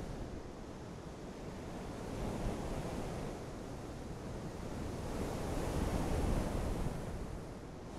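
Steady rushing noise like wind, with no pitch or distinct events, swelling about five to seven seconds in.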